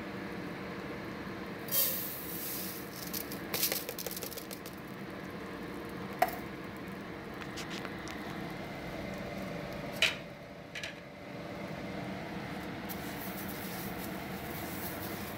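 Butter sizzling in a hot stainless steel pot. About two seconds in, dry rice is poured in and patters onto the pot for a couple of seconds, and a couple of sharp clinks against the pot follow later.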